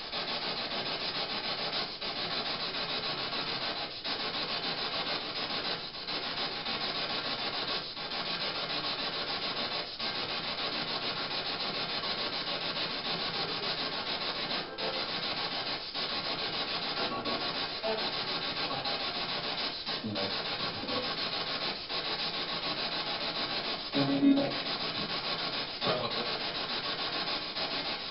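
Steady, even hiss that dips briefly about every two seconds, with a short louder sound near the end.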